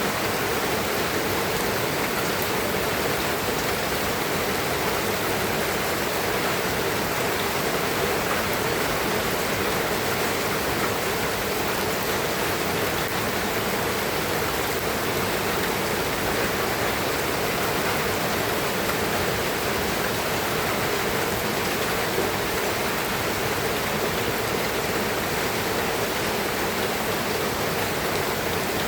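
Steady rain falling, a dense even hiss that does not change.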